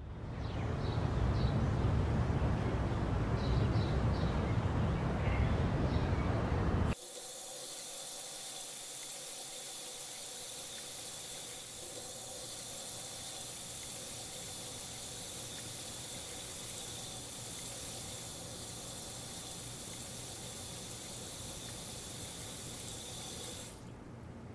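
A loud low rumble for the first seven seconds, then a kitchen faucet running steadily into a sink, which stops shortly before the end.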